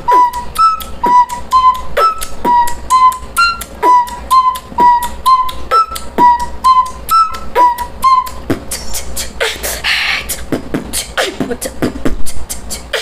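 A plastic recorder, blown through the nose, plays a short repeating riff while mouth beatboxing lays sharp kick and snare clicks under it at a steady beat. About eight and a half seconds in, the recorder stops and the beatbox goes on alone, with a long hissing snare-like sound around ten seconds.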